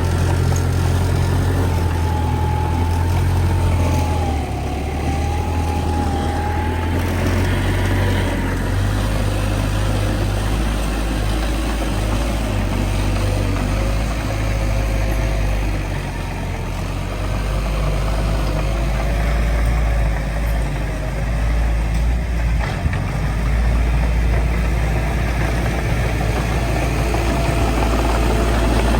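Heavy diesel engine of earthmoving machinery running steadily, a deep rumble with a faint wavering whine above it.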